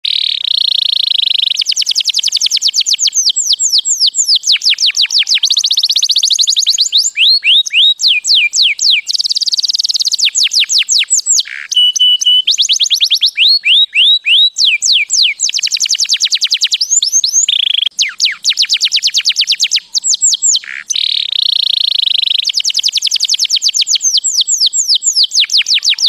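Domestic canary singing a long, continuous song of fast trills, each a rapid run of repeated high sweeping notes. The trills are broken by short buzzy rolls and one brief held whistle, with hardly a pause.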